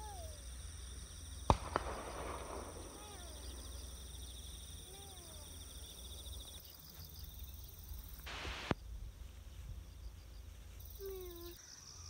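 Insects chirring in several steady high-pitched trills, with low wind rumble and a few faint short falling calls. A sharp click about a second and a half in is the loudest sound, and a brief rush of noise comes about two-thirds of the way through.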